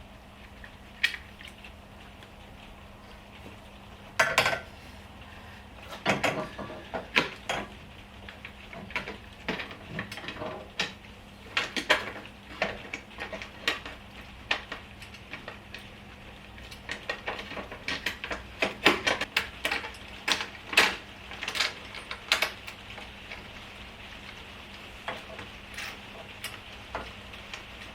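Irregular metallic clinks, taps and knocks of hand tools and steel bolts being worked on a motorcycle's frame, thickest in the middle and thinning out near the end.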